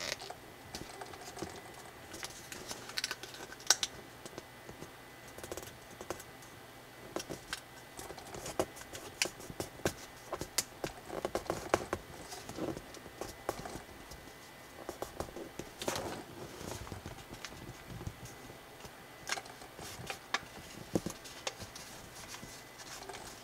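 A sheet of origami colour paper being folded and creased by hand: irregular small crinkles, rustles and taps, with sharper clicks now and then.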